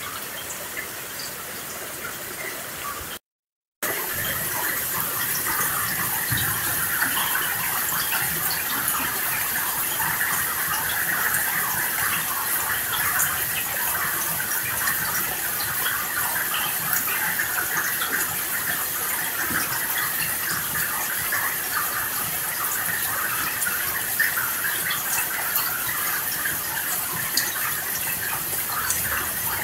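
Steady, heavy rain falling, a dense patter of many small drops. It cuts out to dead silence for about half a second around three seconds in, then comes back louder.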